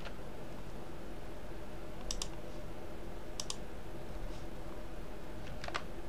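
Computer mouse and keyboard clicks: three quick double clicks, about two, three and a half and nearly six seconds in, over a faint steady hum.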